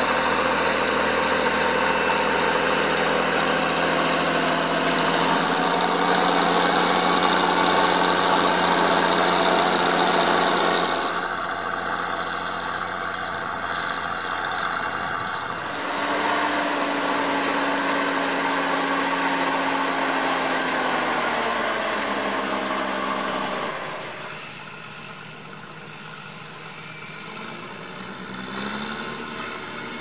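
Massey Ferguson 1200 articulated tractor's Perkins six-cylinder diesel running steadily under load while pulling a four-furrow plough. Its pitch and loudness shift abruptly a couple of times. It is quieter in the last few seconds, with a brief rise in revs shortly before the end.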